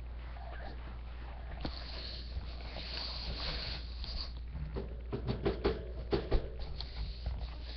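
Handling noise from a webcam computer being carried and moved: rustling, then a quick cluster of sharp knocks and clicks about five seconds in, over a steady low hum.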